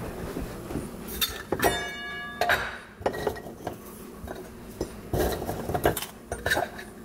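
Glass jar of dog biscuits clinking and knocking as it is opened and a hand rummages in it for treats. One clink about two seconds in rings on briefly.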